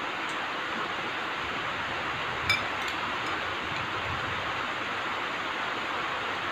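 Metal spoons clinking against soup bowls: one sharp clink about two and a half seconds in, then a few lighter ticks, over a steady hiss.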